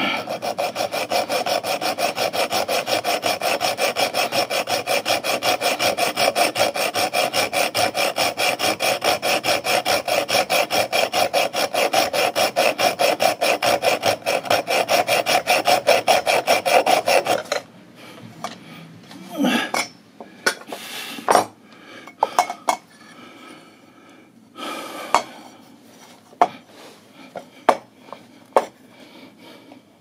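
Small hand hacksaw cutting through a thin metal tube in quick, even back-and-forth strokes. The sawing stops about two-thirds of the way through, followed by scattered short knocks and scrapes.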